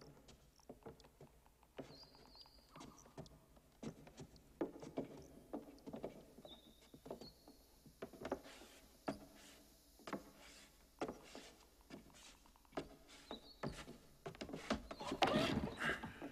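Slow, uneven footsteps of shoes knocking on a hard stage floor, with a louder cluster of knocks and scuffing near the end.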